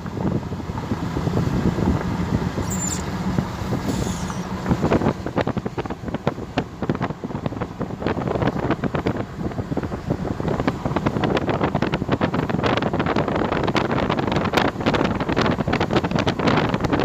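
Wind buffeting the microphone of a phone held out in a thunderstorm: a steady low rush, with dense crackling ticks from about five seconds in.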